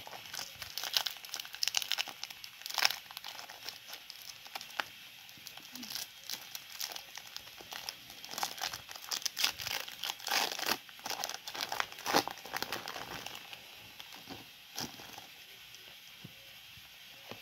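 Foil wrapper of a Pokémon trading-card booster pack crinkling and tearing as it is opened by hand, in quick irregular crackles that die away near the end.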